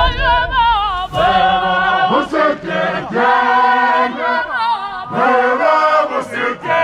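Intro music of chanted singing: voices holding long notes that waver in pitch, moving to a new note every second or so.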